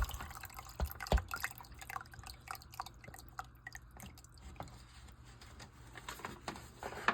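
Hot turkey drippings dripping off in scattered, irregular drops after being poured from the roasting pan, with a couple of light knocks about a second in.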